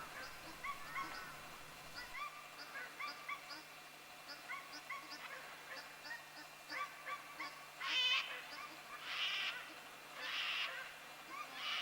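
Sulphur-crested cockatoos calling in forest: short chirping notes run on throughout, and from about eight seconds in come four loud, harsh screeches, roughly one every second and a bit.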